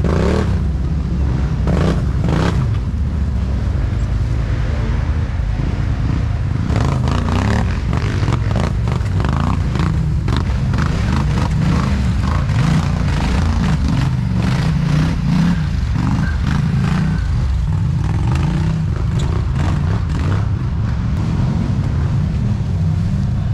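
ATV engines running and revving unevenly as the quads pick their way up a rocky creek bed, with scattered knocks and scrapes throughout.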